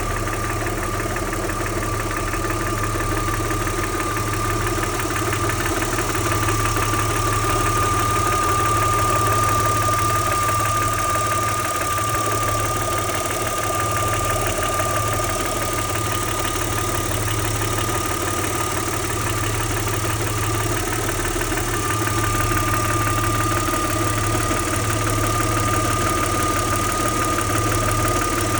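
Audi 80's 2.6-litre V6 engine running steadily at idle with a fast, even clacking, which the owner asks about as possible knocking ('Nageln'). A steady high-pitched whine runs over it.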